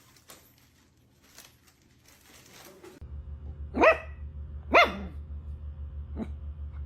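A dog barking: two loud barks about a second apart, then a shorter, fainter one. A low pulsing hum starts under them about three seconds in.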